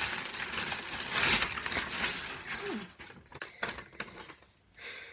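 Paper and packaging rustling and crinkling for about three seconds, loudest a little over a second in, then a few light clicks and softer rustles as a sheet of paper is handled.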